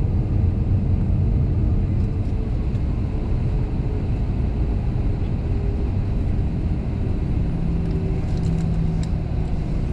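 Airliner cabin noise during taxi: a steady low rumble from the jet engines at taxi power and the aircraft rolling along the taxiway, with a faint hum. A few faint clicks come near the end.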